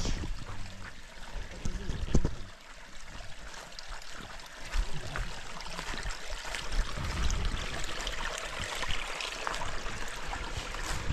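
A small bush stream trickling, with footsteps and low thumps from the camera being carried down a steep track.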